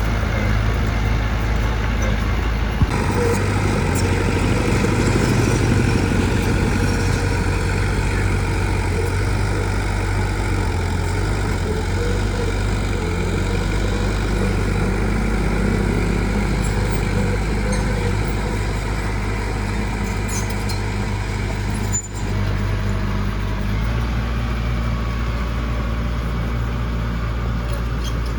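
Heavy diesel construction machinery running steadily, its engine note shifting about three seconds in and again near the end as the load changes.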